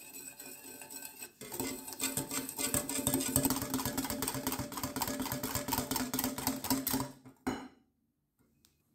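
Stainless steel wire balloon whisk beating eggs and sugar in a glass bowl: rapid rhythmic clinking and scraping of the wires against the glass. It starts slower, speeds up and grows louder about a second and a half in, and stops about seven and a half seconds in with a last knock against the bowl.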